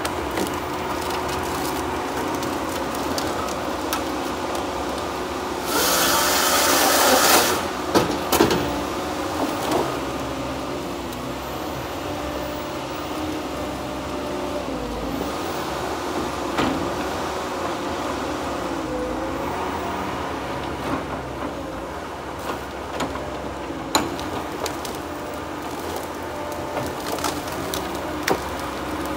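Tigercat 234B knuckleboom loader working, its engine and hydraulics running with a pitch that rises and falls as the boom swings, while pine logs knock and clatter together in the grapple and on the deck. A loud rushing burst about six seconds in lasts a second and a half.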